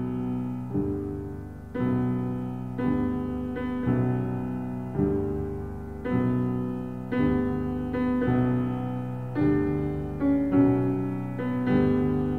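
Slow, gentle piano music: sustained chords struck about once a second, each fading before the next.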